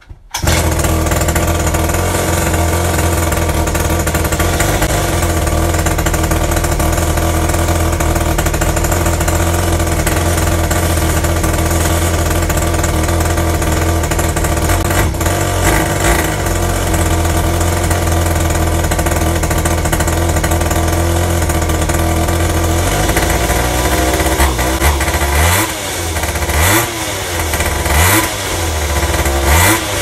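A 50cc two-stroke pocket bike engine is pull-started, catches almost at once, and runs steadily. Near the end it is revved up and down several times. It runs strong on a freshly cleaned carburettor.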